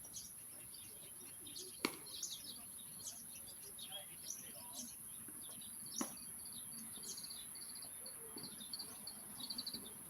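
Small birds chirping, with a rapid trill near the end, over low outdoor background noise. Two sharp knocks cut through, about two seconds in and again about six seconds in.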